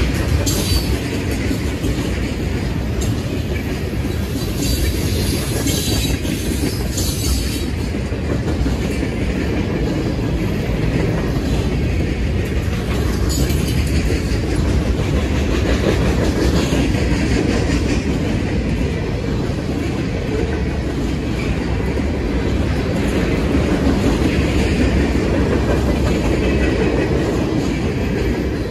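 Freight train cars rolling past: a steady rumble of steel wheels on the rails, with repeated clacks as the wheels cross rail joints and brief higher-pitched bursts from the wheels.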